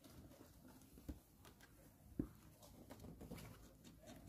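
Near silence: faint background with a few soft taps, the sharpest about two seconds in.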